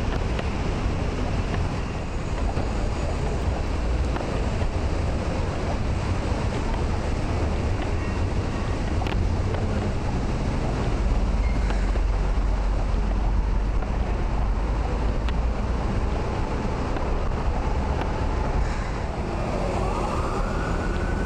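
Street ambience on a walk: wind buffeting the microphone over a steady traffic rumble, heaviest a little past halfway. Near the end a faint high whine rises and then falls.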